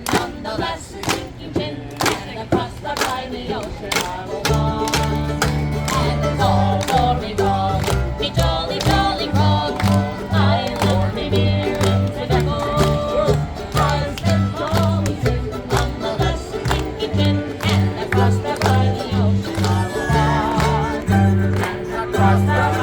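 A live pirate band plays an instrumental passage of a sea-shanty-style drinking song, strummed in a steady rhythm; a deep bass line joins about four and a half seconds in.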